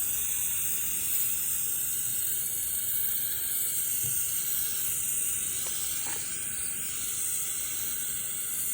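Aerosol can of headlight coating spraying in one long, steady hiss, which cuts off at the very end.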